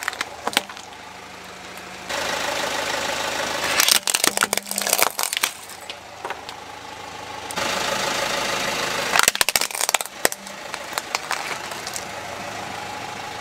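Hard plastic toy vehicles cracking and snapping under a car tyre, in three short bursts of sharp cracks. A car engine runs at low revs between the bursts.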